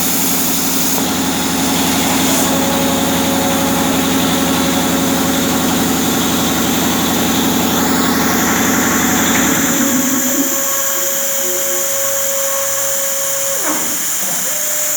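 Plasma cutter running, a loud steady hum and hiss that cuts out about ten seconds in, leaving a fainter steady tone.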